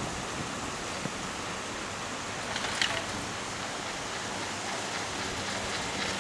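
Riding a chairlift: a steady rush of wind-like noise with a faint low hum under it, and a short rattle about three seconds in.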